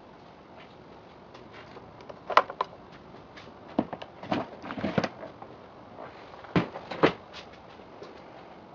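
Plastic clicks and knocks from a Givi motorcycle top case as it is unlocked with its key, unlatched and lifted from its rack mount. There is a sharp pair of clicks about two and a half seconds in, a flurry of rattling knocks around four to five seconds, and two firm clunks near the end.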